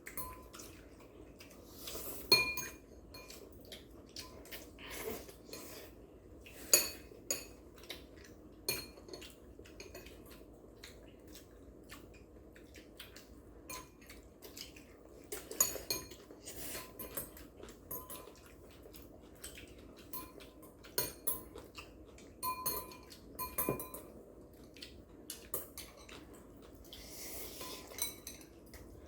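Cutlery clinking and tapping against bowls and plates as several people eat, with irregular sharp clinks, a few of them ringing briefly.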